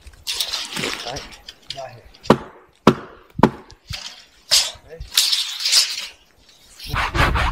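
Scattered sharp clicks and knocks with stretches of hiss as a felled pine log is handled and measured, then near the end a hand saw starts cutting into the log with quick, even strokes.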